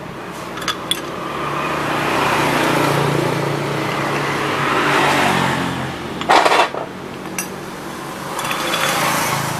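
A motor vehicle engine rising and fading as it passes, then a second, weaker pass near the end. A sharp clatter cuts in about six seconds in.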